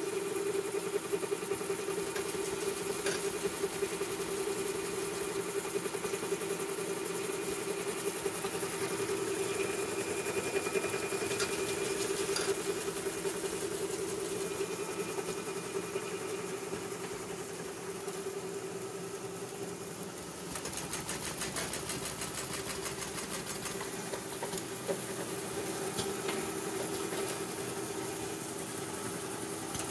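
An NZGSBZJ-GS500S automatic chopsticks packing machine running at production speed: a steady mechanical hum with fast, even ticking from its feed and packing mechanism.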